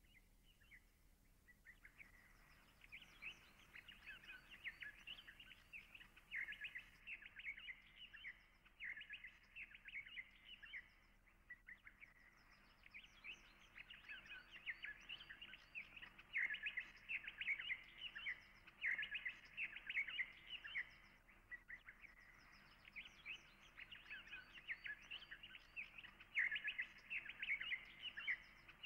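Small birds chirping, a dense run of many short, rapid chirps that thins briefly a couple of times.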